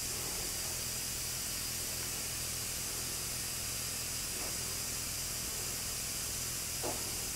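Steady background hiss with a faint low hum and no distinct event: shop room tone.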